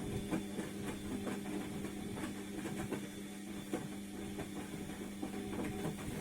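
ATLANT front-loading washing machine mid-wash: the drum motor runs with a steady hum, and irregular clicks and knocks come through from the turning drum and load.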